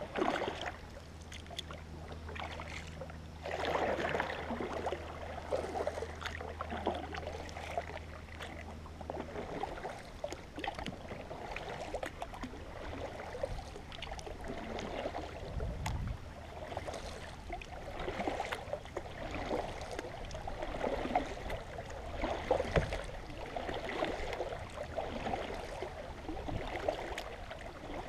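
Kayak paddle strokes: the double-bladed paddle dipping and pulling through the river water, splashing and dripping in a steady rhythm, with a couple of low thuds.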